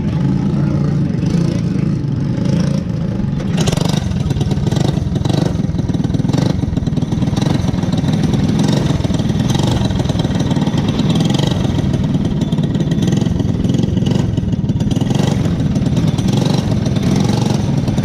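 Cadet-class winged sprint car engines running close by, a loud steady drone with uneven surges in revs from about four seconds in.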